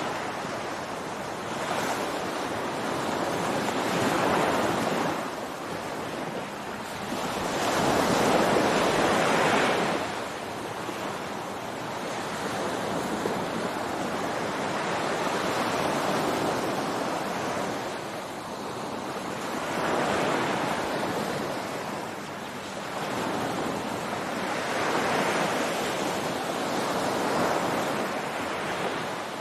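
Ocean surf breaking on a beach, a continuous wash that swells and ebbs as each wave comes in, the biggest surge about eight seconds in. Light wind noise on the microphone underneath.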